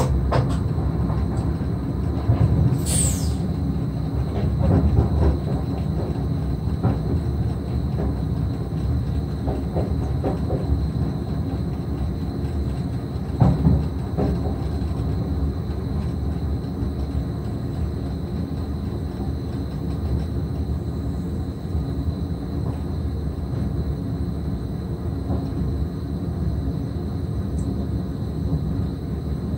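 NS SGM Sprinter electric train heard from the driver's cab while running: a steady low rumble of wheels on track. A brief high squeal falls in pitch about three seconds in, and a single thump comes about halfway through.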